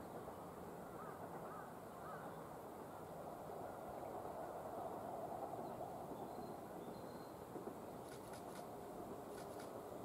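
Faint distant hum of a KiHa 40 diesel railcar running along the line far below, swelling a little midway. A few distant bird calls come about one to two seconds in, and a few faint ticks near the end.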